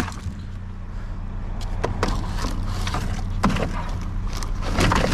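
A steady low engine hum, like a vehicle idling, with a few sharp knocks and clanks over it, about two seconds, three and a half seconds and five seconds in.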